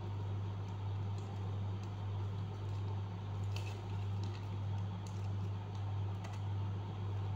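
Origami paper with a red foil layer being folded and creased by hand, with a few faint crinkles and taps scattered through. A steady low hum runs underneath.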